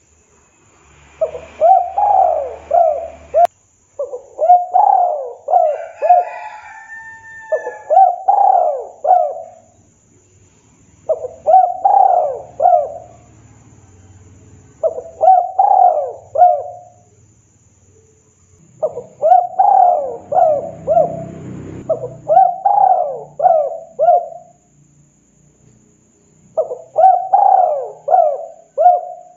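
Spotted dove (tekukur) cooing: about eight phrases, each a quick run of several rounded coo notes, with pauses of a second or two between them.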